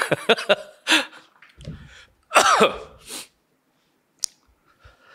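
A man's short throat-clearing and cough-like bursts, with a single sharp click about four seconds in.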